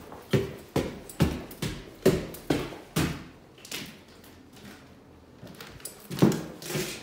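Footsteps, about two a second, each step echoing in an empty room; they stop for a couple of seconds, then start again near the end.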